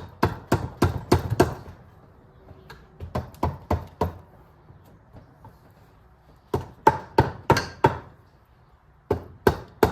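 Quick bursts of sharp knocks, about six, then four, five and three, as the stuck cylinder of a 2006 Yamaha YZ250 two-stroke engine is struck to free it from the crankcase.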